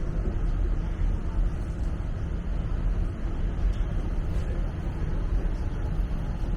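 Steady low rumble of downtown street traffic around a TTC streetcar stop, even throughout with no distinct events.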